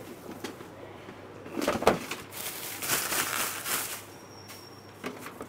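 Plastic packaging wrap rustling and crinkling as it is pulled off a new laser printer, with a sharp knock about two seconds in.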